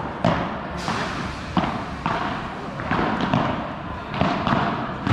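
Padel rally: the ball is struck by rackets and bounces off the court and walls, making a string of sharp pops about half a second to a second apart that echo in a large hall.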